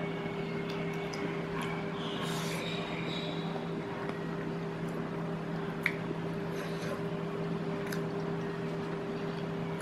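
Eating at a table: a metal spoon scraping and clicking in a plastic food tray, and chewing, with a few small sharp clicks, one a bit louder about six seconds in. A steady low hum continues beneath.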